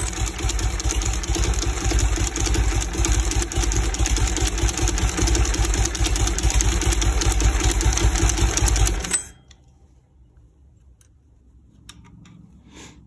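Norton Commando 850's parallel-twin engine turning over on a CNW electric starter: a fast, even clatter that stops abruptly about nine seconds in without the engine catching, followed by faint clicks.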